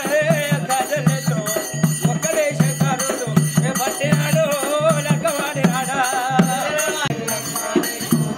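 Folk devotional music with a steady drumbeat and a wavering melody line over it.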